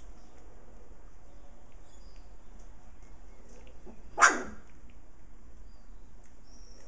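A puppy barks once, a single short bark about four seconds in.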